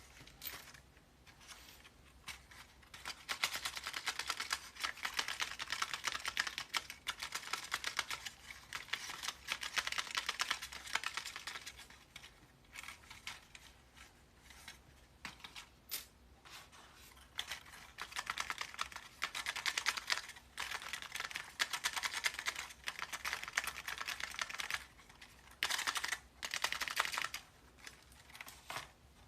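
Handmade paper keycap clickers being pressed over and over. They make rapid clicking in runs of a few seconds, broken by short pauses.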